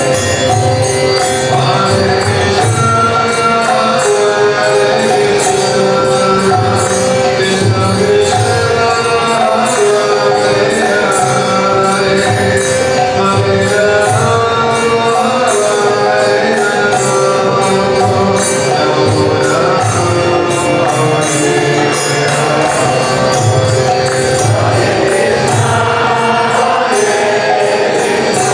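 Kirtan music: a harmonium plays sustained chords under a man's voice leading a devotional chant. A steady beat of drum and jingling hand cymbals runs underneath without a break.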